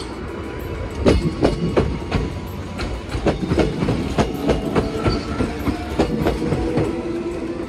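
Kintetsu electric commuter train passing at close range, its wheels clacking over the rail joints in a quick, irregular run of clicks over a steady rumble.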